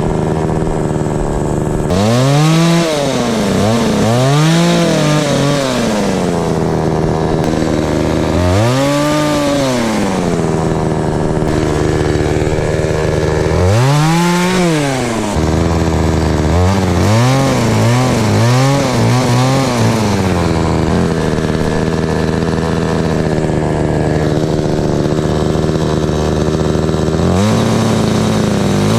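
Gas chainsaw engine running and being revved up and back down, over and over, while pruning tree limbs: several long revs, a quick run of short revs about halfway through, then several seconds at a steady speed before it revs again near the end.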